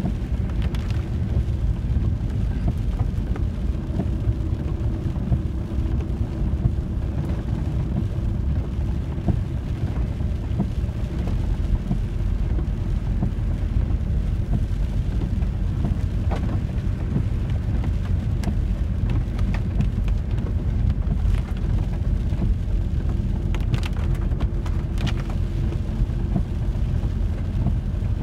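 VW T4 campervan driving on a wet road, heard from inside the cab: a steady low rumble of engine and road noise, with a few light ticks scattered through it.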